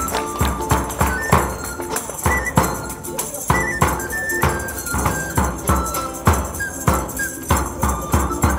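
Live medieval-style folk music. A frame drum struck with a beater keeps a steady beat of about two strokes a second. Over it a small end-blown flute plays a high, stepping melody, with a plucked lute-like string instrument underneath.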